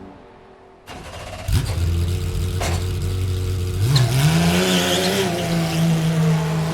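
Porsche 992 GT3 R racing car's flat-six engine. After a quiet first second, it cuts in suddenly about a second and a half in at a steady note. About four seconds in, the pitch rises and holds higher as it revs up.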